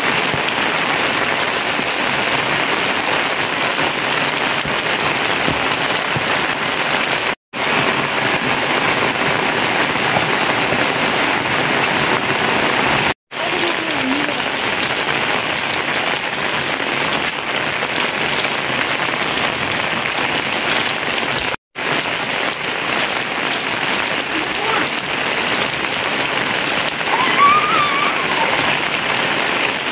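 Steady rain falling, an even hiss of rain on roofs and wet ground. It breaks off abruptly three times for a split second.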